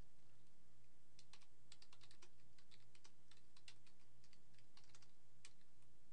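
Computer keyboard keys clicking in quick, irregular runs of typing, over a low steady hum.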